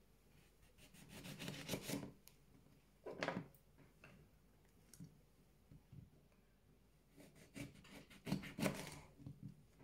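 Small kitchen knife cutting through lemon peel and flesh on a plastic cutting board: scratchy, rasping strokes in two spells, about a second in and again near the end, with a shorter scrape about three seconds in.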